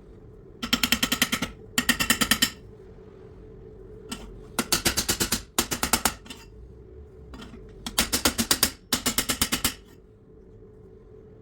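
A metal file drawn hard across a motorcycle exhaust tube: six strokes in three pairs, each a fast chatter of about nine pulses a second with the tube ringing.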